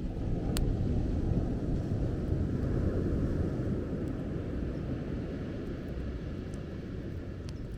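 Beach bonfire crackling, with a few sharp pops, over a low rumble that swells just before it starts and slowly eases off.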